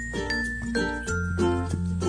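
Background music: a light melody of short, quickly changing notes over a low held bass.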